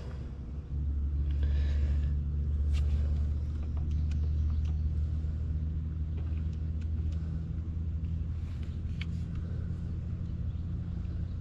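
A steady low, engine-like rumble with a faint hum starts suddenly about a second in and carries on. A few faint short squirts of a trigger spray bottle of bubble leak-detection solution sound over it.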